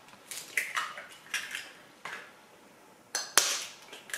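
Knife blade tapping eggshells to crack eggs over a plastic mixing bowl: a series of sharp, irregular clicks, the loudest about three and a half seconds in.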